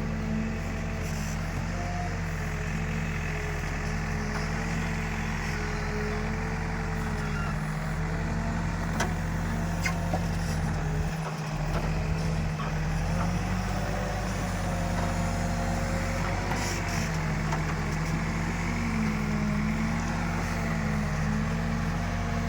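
Diesel engine of an Escorts Digmax backhoe loader running steadily while it works, its pitch shifting up and down as the load changes, with a few faint clicks.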